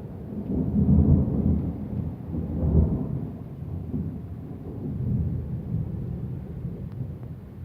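Thunder rumbling, loudest about a second in and again near three seconds, then dying away towards the end, with rain behind it.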